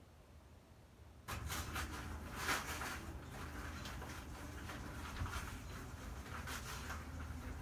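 Tile grout being stirred and scraped in a plastic bucket: an irregular scraping and sloshing that starts about a second in and keeps going.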